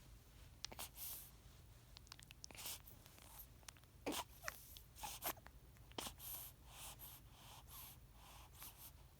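Newborn baby hiccupping: several short, sharp hics a second or so apart, the loudest about four seconds in, with soft breaths and small mouth sounds between them.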